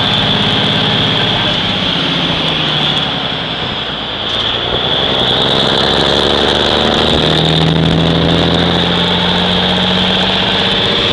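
1957 Mack B-75 truck heard from inside the cab while under way: the engine runs steadily over a constant hiss of road and wind noise. The engine note grows stronger about seven seconds in.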